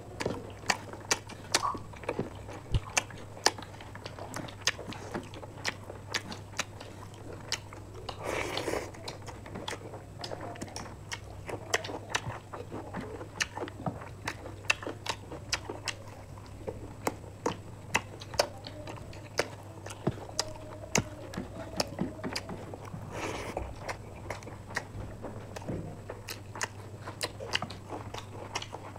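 Close-miked eating sounds: two people chewing and smacking their lips over rice, curry and fried chicken, with many sharp wet mouth clicks. Twice there is a short breathy rush, about a third of the way in and again near the end, over a steady low hum.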